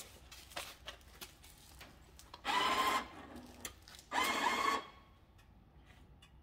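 Claw machine's bill acceptor motor whirring twice, each about half a second, as a dollar bill is drawn in, with light clicks of handling around it.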